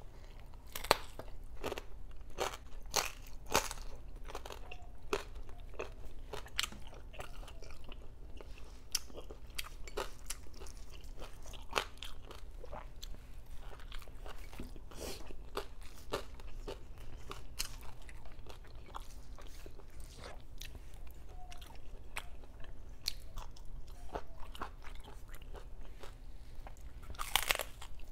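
Chewing and crunching of crispy lechon kawali (deep-fried pork belly) skin, with short sharp crackles all through and a loud crunchy bite near the end.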